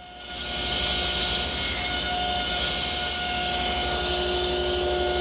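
Table saw running with a steady whine while its blade nibbles away cypress for an armrest's angled tenon cheek, cutting in repeated passes with the miter gauge.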